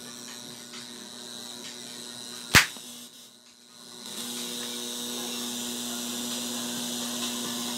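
Homemade TDA7052 mini amplifier humming steadily through its speaker, with a loud pop about two and a half seconds in as the audio lead is plugged into a phone. After a short dip the hum and hiss come back louder, and no music comes through: the amplifier only hums and does not play, which the builder puts down to a broken volume control.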